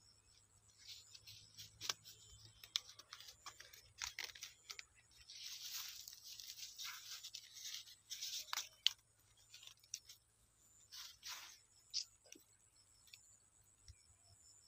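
Hands squeezing and packing homemade dough bait onto a hook rig, making irregular rustling and crackling with scattered sharp clicks, busiest through the middle of the stretch.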